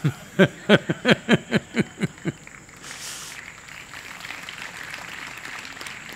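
A man laughing into a close microphone: about nine rhythmic 'ha' pulses over two seconds, each falling in pitch, then a faint, even background murmur.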